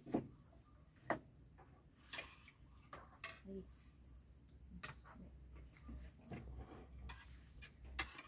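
Faint, scattered clicks and taps of tableware on plates during a meal, about seven in all, over a steady low rumble.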